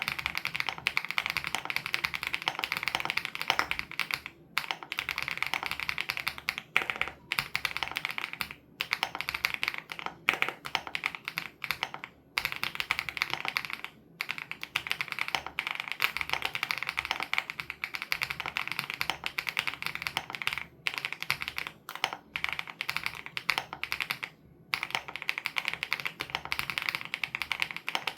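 Fast, continuous typing on a Wobkey Crush 80 Reboot custom mechanical keyboard with Hyacinth switches, keystrokes coming in quick runs broken by short pauses every few seconds.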